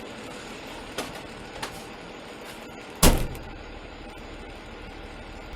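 A steady hiss with two light clicks, then one loud, short knock about three seconds in.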